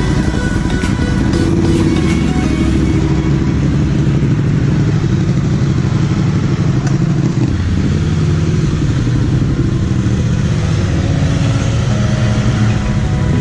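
Motorcycle engines running at low revs, the pitch rising and falling several times with small throttle changes as the bikes move off slowly.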